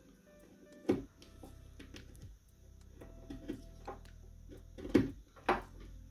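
Utility knife blade cutting and scraping a small plastic locating tab off a fan connector against a wooden desktop: a few sharp clicks, the loudest about a second in and twice around five seconds in.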